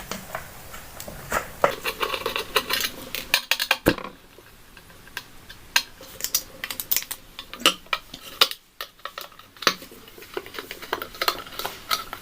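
A large screwdriver turning out the screws of a ceiling fan's metal motor housing: irregular metallic clicks, taps and scrapes, with a sharper knock about four seconds in.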